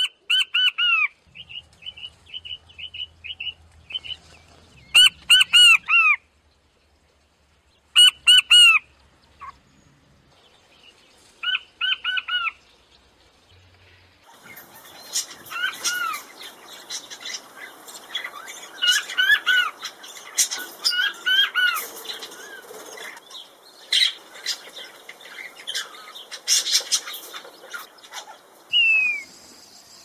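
King quail calling: short groups of high, descending piping whistles, repeated every few seconds. About halfway through, the recording changes to a noisier one with a crackling background, where the falling whistles go on.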